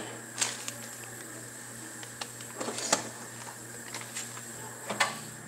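A few light clicks and knocks of kitchen items being handled, spaced a second or so apart, over a steady low hum.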